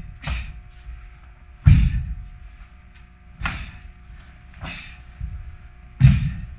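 Taekwondo practitioner performing a pattern: a sharp burst of breath and a snap of the uniform with each technique, over a thud of the feet on the floor. Five of these come about a second and a half apart, with the heaviest thuds near the middle and at the end.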